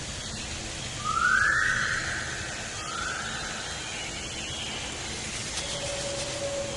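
Steady rushing forest ambience, like running water or rain, with two loud rising whistles, one about a second in and a shorter one near three seconds, each sliding up and then holding. A steady lower tone comes in near the end.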